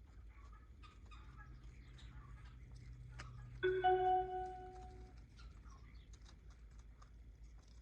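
Faint scraping and tapping, as of snow being brushed off the tractor's dash, with a short clear tone with overtones about three and a half seconds in that fades over about a second and a half.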